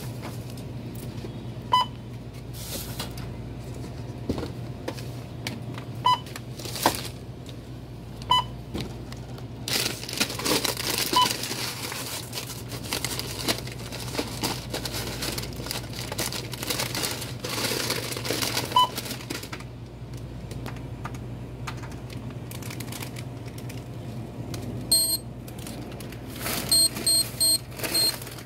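Checkout barcode scanner beeping once for each item rung up, about six short single beeps spread out, with plastic packaging and bags rustling and items being handled. Near the end comes a run of quick, repeated high beeps.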